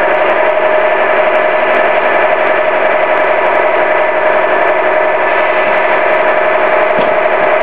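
Radio-controlled model truck running close by, a loud steady mechanical hum with an even whine through it.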